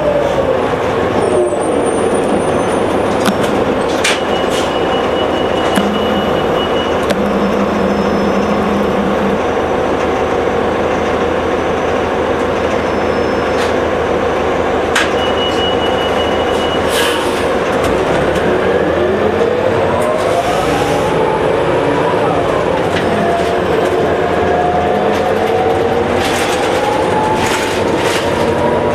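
Allison B500R automatic transmission whining inside a New Flyer D60HF articulated bus, over its Detroit Diesel Series 50 diesel engine running under way. The whine falls in pitch near the start, swoops up and down about two-thirds of the way through, and climbs again near the end as road speed changes.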